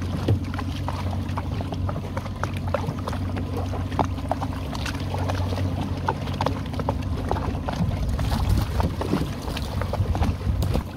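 Boat motor idling in a steady low hum while a crab trotline runs up over the side roller, with scattered clicks and water splashes. The splashing grows louder near the end as a dip net is swept through the water.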